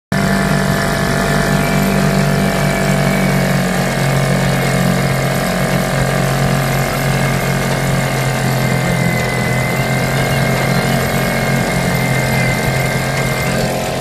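British Seagull Silver Century single-cylinder two-stroke outboard motor running steadily under way, at a constant speed with no change in revs.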